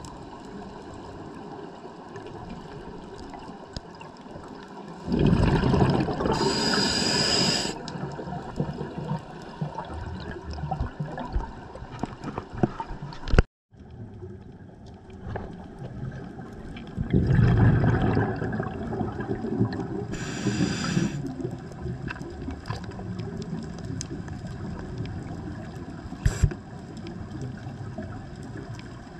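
Scuba diver breathing through a regulator, heard from an underwater camera housing: two loud bubbling exhalations, each followed by a hissing breath, over a steady muffled underwater background. The sound drops out for a moment about halfway through.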